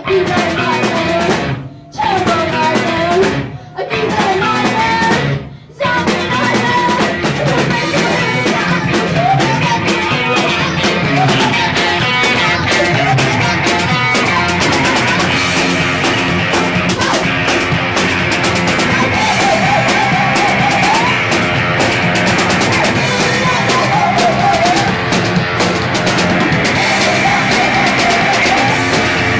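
Live punk rock band playing loud, with distorted electric guitars and a drum kit. In the first six seconds the band cuts out three times for a split second in stop-start breaks, then plays on without pause.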